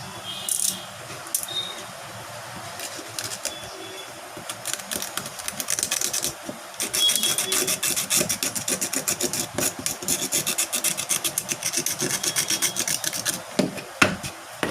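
Rapid run of small clicks and scrapes, about eight to ten a second, from hand tools working on a smartphone during a display replacement, after a few scattered clicks and ending with one sharper click.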